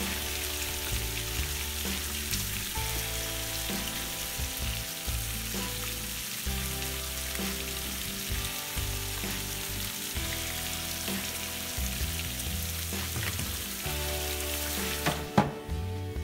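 Bacon frying on a porcelain-enameled cast iron griddle and raw chicken breasts sizzling as they are laid on the hot gas grill's grate: a steady hiss. Background music plays underneath. Near the end comes a single sharp knock, and the sizzling cuts off.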